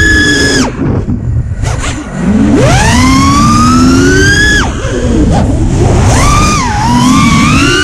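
Brushless motors of a 5-inch FPV racing quad (T-Motor F40 2300kv on 4S, spinning HQ 5040 props) whining in a pitch that rises and falls with the throttle. The whine drops sharply less than a second in and stays quieter for about a second and a half as the throttle is cut. It then climbs steadily, drops sharply again just before five seconds in, and swings quickly up and down near the end, over a low rush of wind noise.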